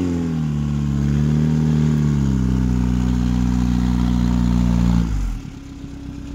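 ZAZ Zaporozhets 4x4 off-road build's engine revving hard under load while the car is stuck in deep mud ruts, its pitch rising and falling. About five seconds in the revs drop suddenly and the engine settles to a lower, quieter idle.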